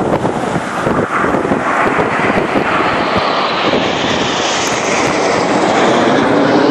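A formation of nine Red Arrows BAE Hawk T1 jets flying past, the jet noise growing louder and higher-pitched as the formation nears, heaviest in the second half.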